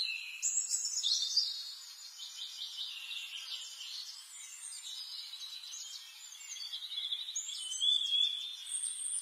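Several small birds chirping, trilling and whistling at once, their calls overlapping throughout, with short rising whistles near the end.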